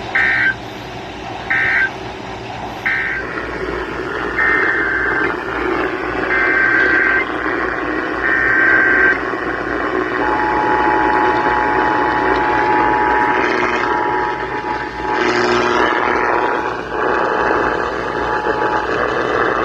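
Emergency Alert System digital data bursts: three short end-of-message bursts, then three longer SAME header bursts, followed by the EAS two-tone attention signal held steadily for about eight and a half seconds. A steady hiss of broadcast static runs underneath.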